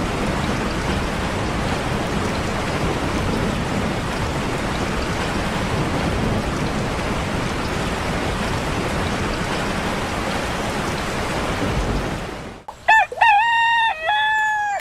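Steady heavy rain that stops abruptly near the end, followed by a rooster crowing once, a pitched call of about two seconds that steps up and down.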